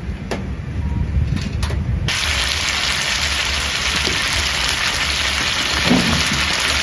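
Pan-fried xiaolongbao sizzling in a hot oiled pan: a loud, steady hiss that starts abruptly about two seconds in, over a low kitchen rumble with a few sharp clicks before it.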